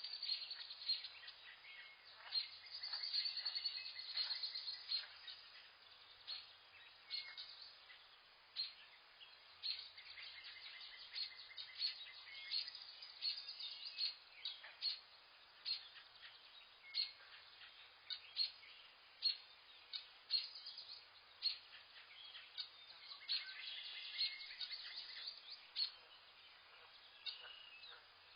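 Several birds calling in forest, with frequent short sharp chirps and some longer high trills, over a faint steady hiss.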